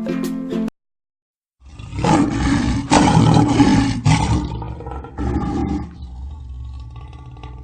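Lion roaring: a loud, deep, rough roar that rises about a second and a half in and holds for about four seconds, then trails off into a quieter, lower rumble.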